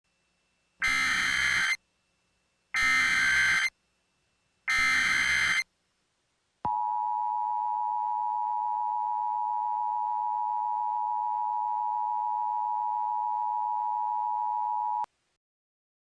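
Emergency Alert System broadcast signal: three one-second bursts of screeching SAME digital header data, then the two-tone EAS attention signal, a steady dual tone held for about eight seconds that cuts off abruptly. It marks the start of a new emergency alert.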